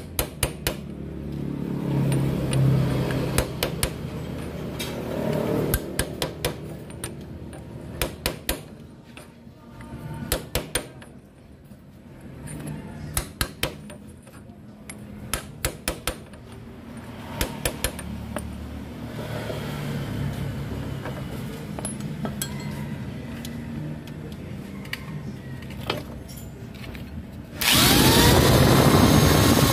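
Quick clusters of sharp metal clicks and knocks as a socket is worked on a chain-drive engine's sprocket shaft. Near the end an electric angle grinder starts up, its whine rising and then holding steady, ready to grind down the marked sprocket shaft.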